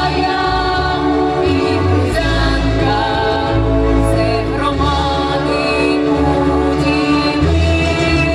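Ukrainian folk choir and a female soloist singing an anthem together, holding long notes over instrumental backing with a steady bass.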